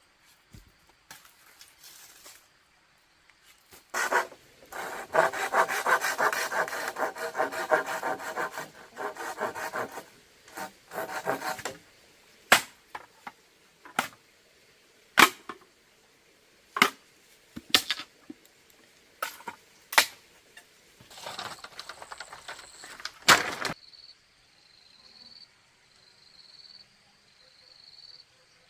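Bamboo being worked with a hand tool: about six seconds of quick rasping strokes, then a string of single sharp knocks on wood about a second apart, and another short rasping stretch. Near the end a cricket trills faintly.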